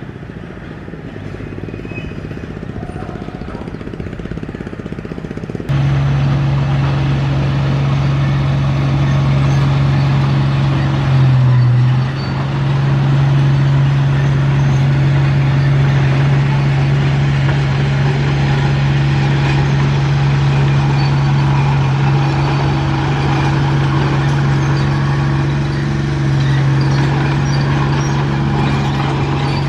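Diesel engine of a Komatsu D31P crawler bulldozer running under steady load with a strong, even hum. The sound jumps suddenly louder about six seconds in, and there is a brief louder swell a few seconds after that.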